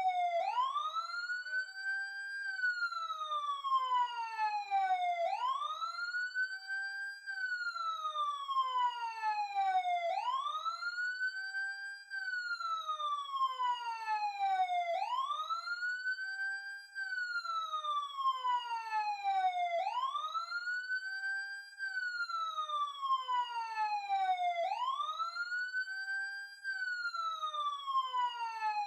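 Police siren wailing: each cycle rises quickly in pitch, holds briefly at the top, then falls slowly, repeating about every five seconds.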